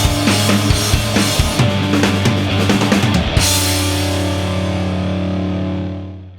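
Rock background music with drums and electric guitar, the drumbeat stopping about three and a half seconds in and a final held chord fading out at the end.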